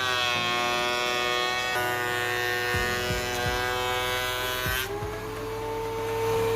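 Power tool motor whining at a steady pitch while cutting wood, dipping in pitch as it takes load and rising again about five seconds in as it frees up, with a few low knocks around the middle.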